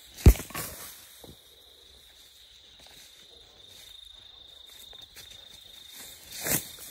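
A sharp, loud thud, then a softer second one, with another thud near the end. A faint, steady, high insect trill runs through the middle.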